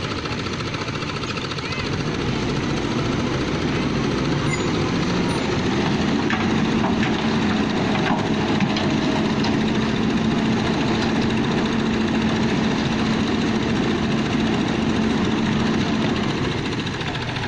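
Engine-driven concrete-casting machinery running steadily. It grows louder about two seconds in, a steady hum joins partway through, and it eases back down near the end.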